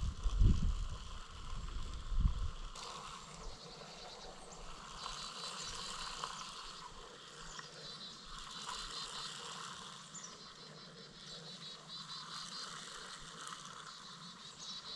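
Outdoor field ambience with repeated high chirping from small creatures such as insects or birds. A few low thumps come in the first two seconds.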